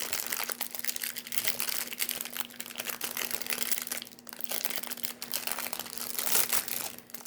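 Baseball card pack wrapper crinkling and crackling as it is torn open and handled, in dense irregular bursts with a couple of brief lulls.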